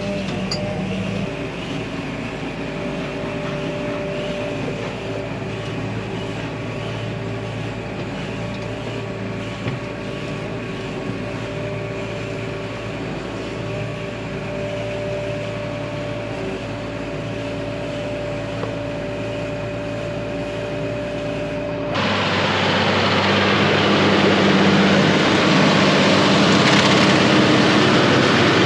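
Tractor running steadily as it tows a bale wrapper wrapping on the move, with a steady whine over the engine. About 22 seconds in, the sound switches abruptly to a louder, noisier rattling of farm machinery.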